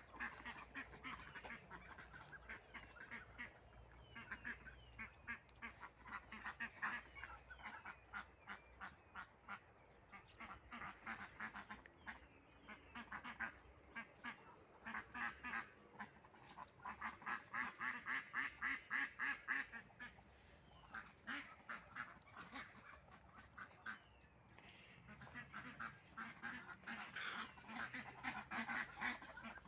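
A flock of white domestic ducks quacking in quick runs of short calls, the loudest run just past halfway and another near the end.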